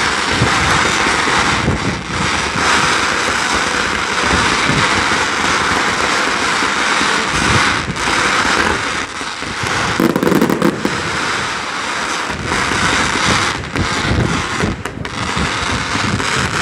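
Fireworks display going off as a dense, continuous barrage of bangs and crackling, with a louder burst about ten seconds in.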